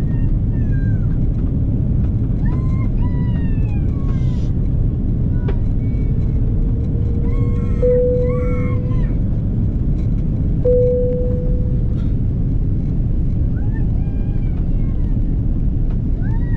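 Steady airliner cabin noise on the approach to landing: a constant low rumble of engines and airflow. Faint passenger voices run underneath, and two short tones sound about three seconds apart around the middle.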